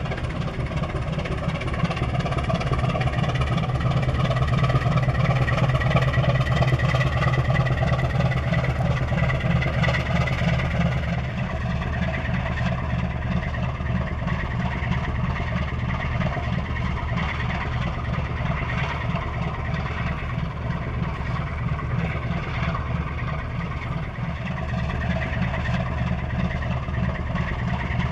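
The inland cargo ship Eemspoort's diesel engine running under way, a steady deep throb with rapid pulsing, mixed with the churn of its propeller wash. It swells over the first few seconds and then holds steady.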